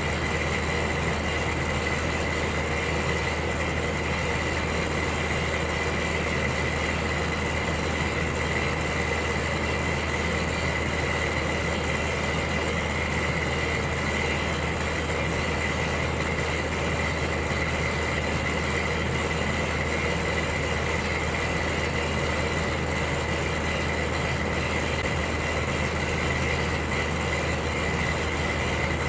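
Electric heater running steadily: an even, unchanging noise with a low hum underneath and a thin, steady high whine.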